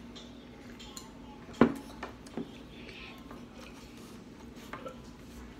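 A drinking cup set down on a table with one sharp knock about one and a half seconds in, followed by a few lighter clicks of tableware.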